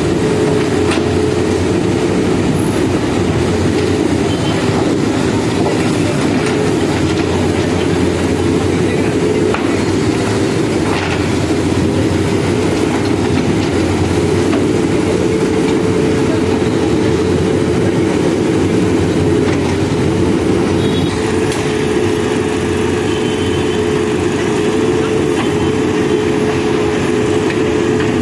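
Manitou-Terex TLB 844S backhoe loader's diesel engine running steadily under load as the backhoe arm lifts and swings its bucket, with a steady hum.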